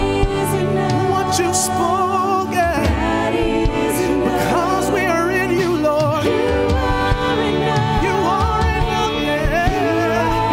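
Live church worship band playing, with sung vocals held in long, wavering notes over sustained instrumental chords.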